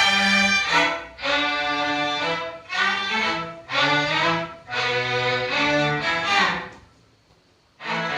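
A slow melody in held notes with a violin-like bowed tone, played in short phrases; it stops for a moment about seven seconds in and then picks up again.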